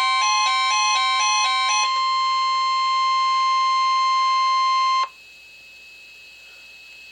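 NOAA Weather Radio's steady 1050 Hz warning alarm tone. For about the first two seconds a stepping electronic two-note alarm pattern plays over it; the tone then holds alone and cuts off abruptly about five seconds in. What remains is faint radio hiss with a thin high whine, the pause before the alert message.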